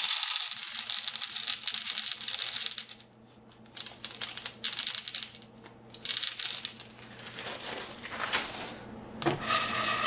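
Dry popcorn kernels pouring from a plastic bag into an oiled nonstick pot: a dense pattering rattle that stops and starts a few times. Near the end the pot is shaken on the stovetop, the kernels rattling around inside it.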